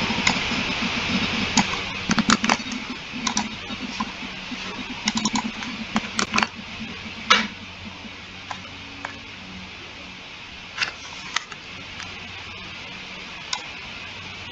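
Computer keyboard keystrokes and mouse clicks, irregular and scattered, several close together in the first half and only a few later, over a steady hiss that drops away about halfway through.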